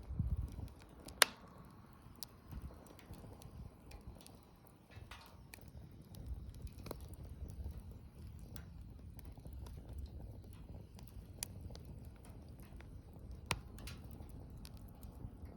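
Bonfire crackling: sharp pops scattered irregularly over a low rumble of burning, the loudest pop about a second in.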